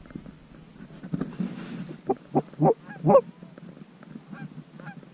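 Goose honking: four quick, sharp honks in a row about two seconds in, with a couple of fainter ones near the end.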